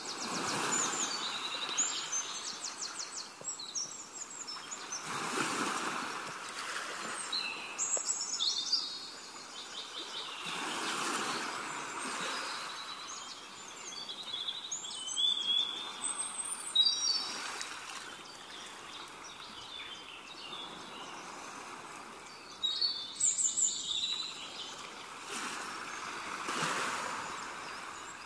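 Birds chirping and trilling over a rushing noise that swells and fades every five to six seconds.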